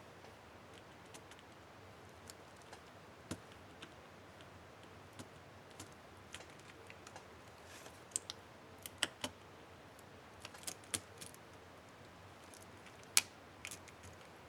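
Small plastic clicks and snaps from a laptop keycap and its retainer clips being handled, coming irregularly. A denser run of clicks falls in the middle, and one sharper snap comes near the end.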